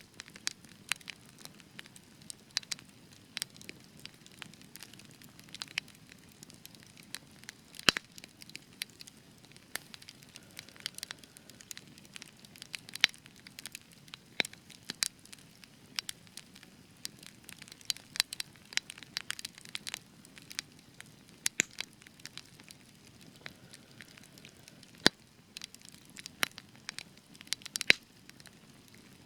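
Spruce wood burning in a campfire, crackling steadily with irregular sharp pops and snaps over a soft hiss of flame; a few pops, about 8 s in and about 25 s in, are louder than the rest.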